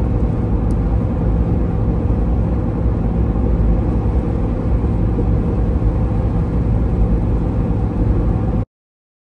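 A vehicle driving down a highway, heard from inside the cabin: a loud, steady rumble of engine and road noise with a low hum. It cuts off abruptly near the end.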